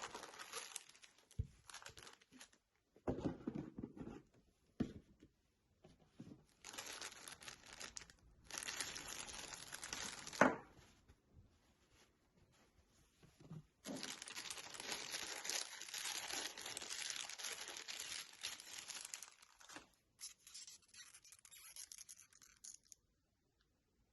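Watch packaging being unwrapped by hand: stretches of crinkling and tearing wrapping, stopping and starting, with a sharp click about ten seconds in.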